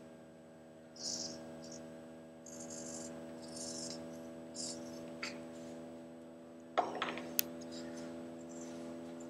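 Hobby servo motors of a small desktop robotic arm whirring in short high-pitched bursts as the arm moves, over a steady electrical hum. A few sharp clicks come about seven seconds in.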